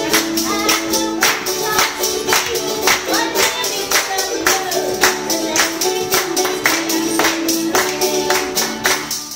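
Live acoustic folk song: a strummed acoustic guitar and a second small stringed instrument, a hand rattle shaken in a steady beat of about three strokes a second, and a man singing the tune.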